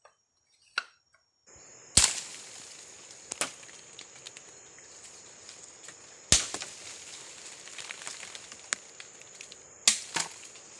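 Chopping blows into bamboo, five sharp strikes spaced a few seconds apart, the last two close together near the end, over a steady high hum of forest insects.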